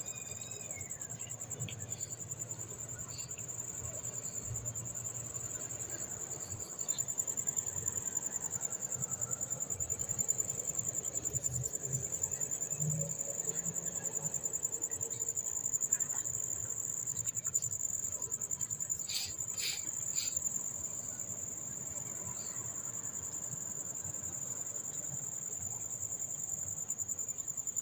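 Insects trilling steadily in a high pitch, with a few light metal clinks as timing-chain guide parts are handled and fitted on the engine, a couple of them near the middle.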